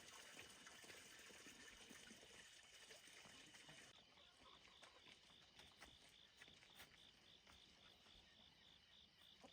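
Near silence: faint outdoor ambience of insects trilling, with a regular high chirp at about three pulses a second starting about four seconds in.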